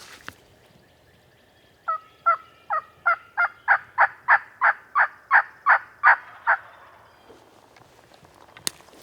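A series of about thirteen turkey yelps, evenly spaced at roughly three a second, growing louder before stopping, with each note breaking from high to low. A single sharp click comes near the end.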